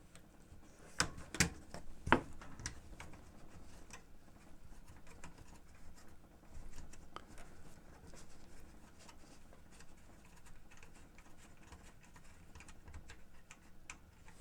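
Small clicks, taps and scrapes of hand tools and parts being handled while a Sony TC-K61 cassette deck is taken apart. Three sharp clicks come near the start, followed by faint scattered ticking.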